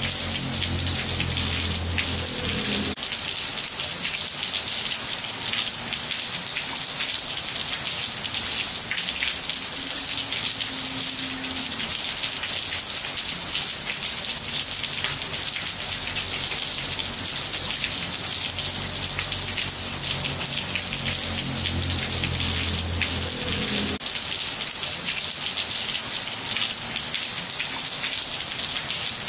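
Steady rain falling on tiles: an even hiss packed with small drop ticks. A low hum sits underneath for the first few seconds and again near the end, cutting off sharply each time.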